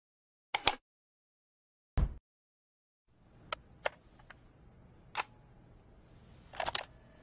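Sharp mechanical clicks of a cassette boombox being handled: a loud double click near the start, a dull low thump about two seconds in, a few single clicks, and a rattling cluster of clicks near the end as its keys are pressed. A faint hiss sits underneath from about halfway.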